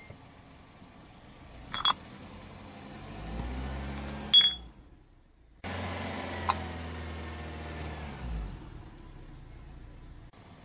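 Car engine running at low speed as the tyre rolls onto a thick glass ashtray, with sharp glassy clinks that ring briefly about two seconds in and, loudest, about four and a half seconds in; the ashtray is not broken.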